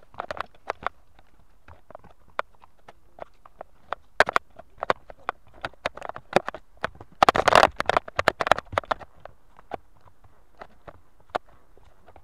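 Ponies' hooves striking a steep forest trail of leaves, roots and stones: irregular knocks and clicks as they climb. There is a louder noisy burst a little over seven seconds in.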